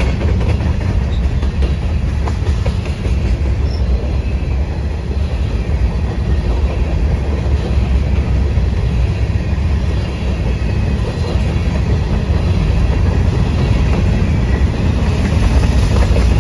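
The freight cars of a CSX grain train rolling past in a steady heavy rumble, with their wheels clicking over the rail joints. The clicking grows sharper and more frequent near the end.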